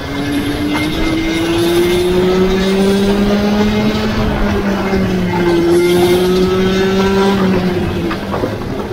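Mini ROK kart's 60cc Vortex two-stroke engine at racing speed, its pitch climbing along the straight, dipping about halfway, climbing again, then falling off near the end. A second, steadier engine note runs beneath it.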